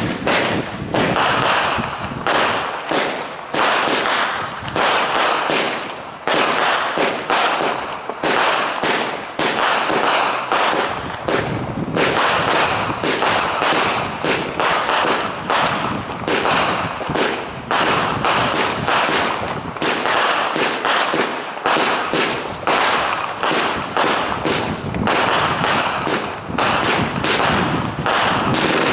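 Wildcat 49-shot comet firework cake firing shot after shot in rapid succession, each launch and burst following closely on the last.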